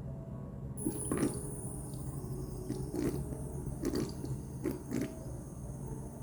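Water drops falling and plipping in a zero-gravity water-drop humidifier, about five at irregular intervals, over a low steady hum.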